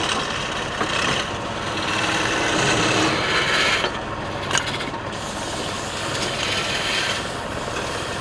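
Turning tool cutting into wood spinning on a lathe: a continuous scraping hiss that swells and eases over the lathe's steady motor hum, with one sharp click about four and a half seconds in.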